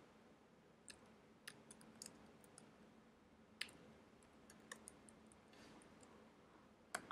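Faint computer keyboard key clicks from typing: about a dozen single keystrokes at irregular spacing over near-silent room tone, with a slightly louder click near the end.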